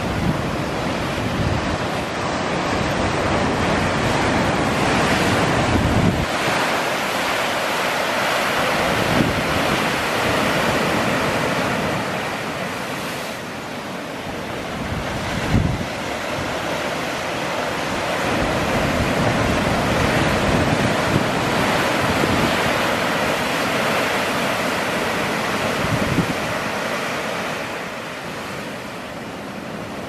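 Ocean surf breaking and washing in a continuous rush that swells and ebbs, with gusts of wind buffeting the microphone.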